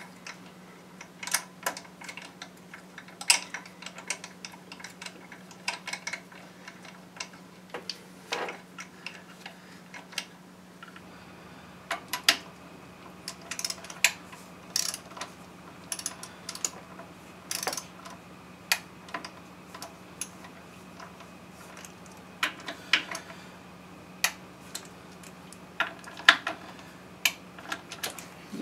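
Irregular metallic clicks and taps of hand tools and bolts being fitted and tightened on an engine, over a faint steady hum.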